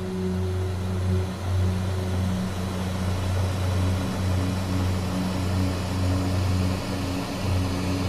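Background music of low, sustained drone notes, with a hiss that grows fuller from about a third of the way in.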